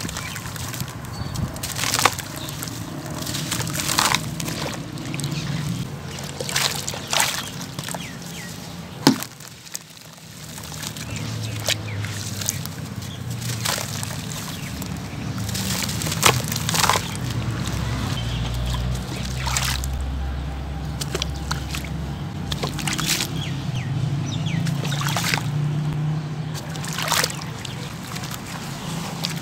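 Hands crumbling dried sand-cement lumps into muddy water: gritty crunching with scattered sharp snaps and crackles, crumbs splashing into the water, and the wet slosh of hands working the mud. A low rumble runs underneath in the second half.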